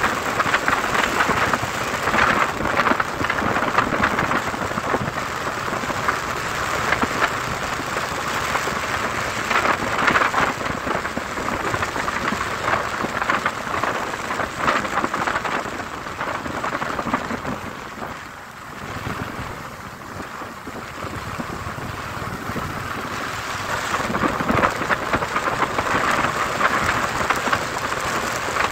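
Steady rushing noise of wind and rain against a camera on a moving motorcycle, easing off for a few seconds a little past the middle and building again near the end.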